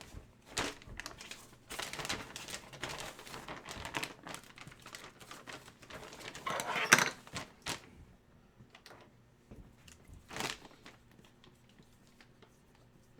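Plastic packaging and trading cards being handled, with irregular crinkling and rustling that is loudest about seven seconds in, then only a few faint ticks for the last several seconds.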